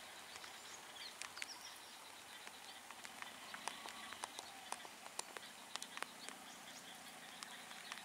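Faint forest ambience: small birds chirping now and then, with scattered sharp ticks throughout.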